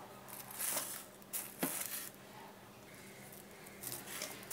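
Faint handling sounds: several soft rustles and scrapes, with a sharper click about a second and a half in, over a faint steady hum.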